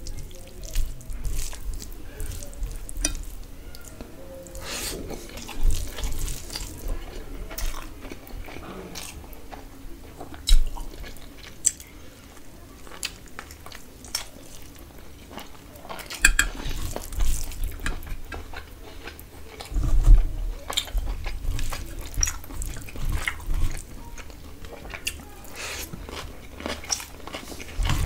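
Close-up eating sounds: wet chewing and biting of duck curry and rice, with irregular smacks and clicks of the mouth and of fingers mixing rice in a steel bowl.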